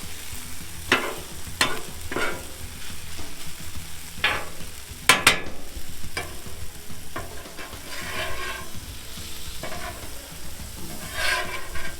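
Chicken sizzling on a Blackstone steel flat-top griddle while a metal spatula clanks and scrapes across the cooktop. There are a handful of sharp clanks, the loudest a double strike about five seconds in, and longer scrapes near the end.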